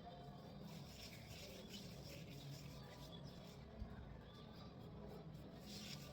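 Near silence: faint room tone with a low hum, and a single soft knock nearly four seconds in.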